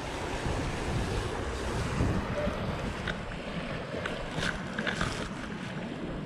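Wind buffeting the microphone over small sea waves washing against shoreline rocks, a steady rushing noise with a few faint light ticks in the second half.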